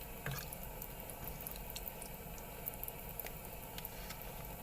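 Faint scattered ticks and small pops over a low steady hiss: a pot of chicken-broth stew heating on the stove.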